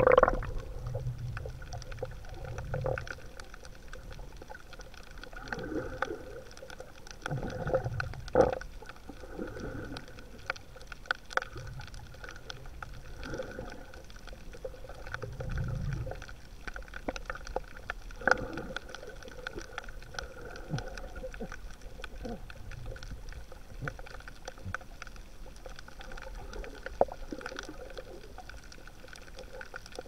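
Muffled underwater sound of shallow seawater heard through an action camera. A brief splash comes at the very start as the camera goes under. After that there are irregular low rumbling swells of moving water and scattered faint clicks and crackles.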